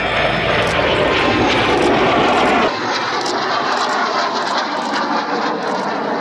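Kawasaki T-4 jet trainer climbing past with its smoke on, a loud, steady jet noise from its twin turbofan engines. About two and a half seconds in, the sound drops a little and loses its deep rumble abruptly.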